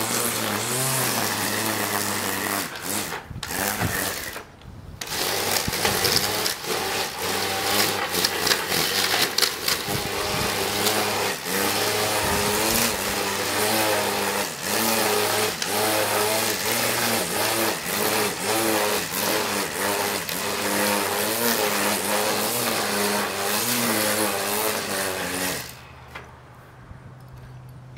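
Cordless string trimmer (weed wacker) running and cutting tall grass, its motor hum wavering in pitch under a patter of ticks. It dips briefly about four seconds in and shuts off near the end, leaving a quieter steady hum.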